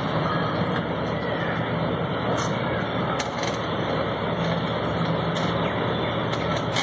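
Steady rumble of a running vehicle, with a few light clicks as the wiper's flexible drive cable is worked into the wiper motor's gearbox.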